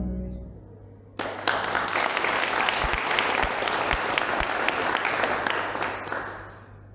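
Audience applauding. The clapping starts suddenly about a second in, just after the last of a piece of music dies away, and fades out near the end.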